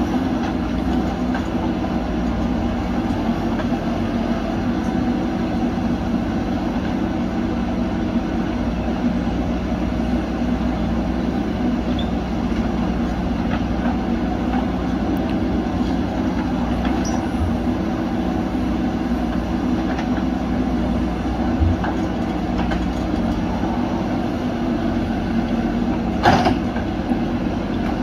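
Diesel engines of backhoe loaders running steadily under load while digging and loading dirt, with a single loud metallic clank near the end.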